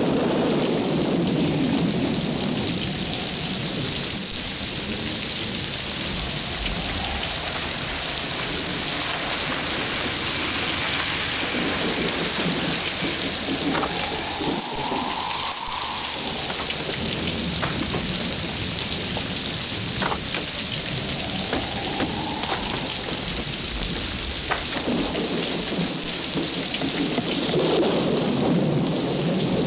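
Heavy rain falling steadily, with rolling thunder rumbling at the start and again near the end.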